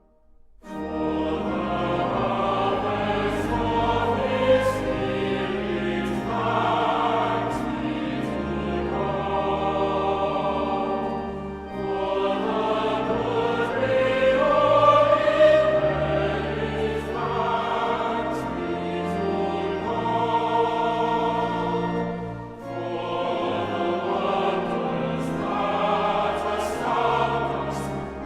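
Choir singing a hymn with instrumental accompaniment, in long sustained phrases with brief breaks between lines about twelve and twenty-two seconds in.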